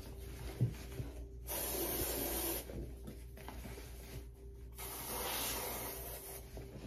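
Aerosol deodorant sprayed under the arms in two hissing bursts, one about a second and a half in and a slightly longer one about five seconds in.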